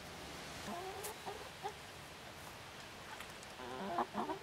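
Hens clucking: a few soft, short clucks about a second in, then a louder run of clucks near the end.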